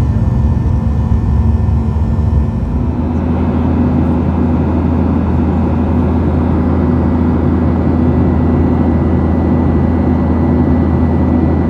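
Steady airliner cabin noise inside a Boeing 737-800 in flight: the CFM56-7B jet engines and the rush of air past the fuselage, with a low hum. The low hum changes in pitch once, about three seconds in.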